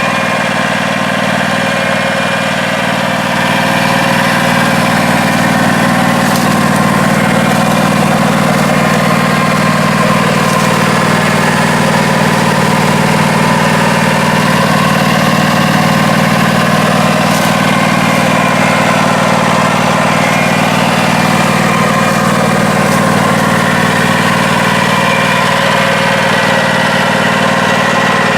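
Riding lawn mower's engine running steadily, getting a little louder about three and a half seconds in and then holding even.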